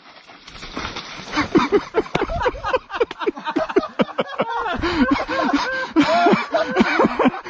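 A mountain bike rattling and knocking as it rides down a rough, muddy dirt trail, with many short rising and falling whines over the rattle.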